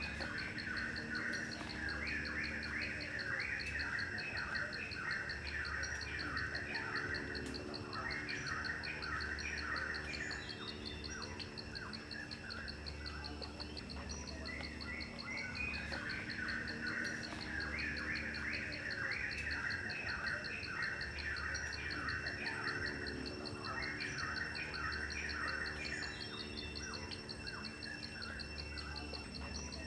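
Outdoor nature ambience: insects trill steadily in a fast high pulse, while birds chirp in repeated bursts of calls every few seconds.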